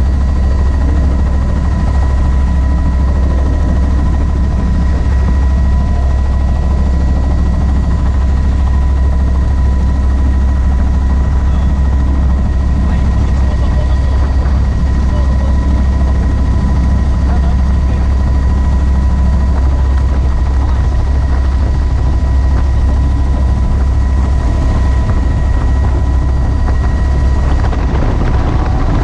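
Helicopter in flight heard from inside the open-doored cabin: a loud, steady drone of rotor and engine, with a thin steady whine above it.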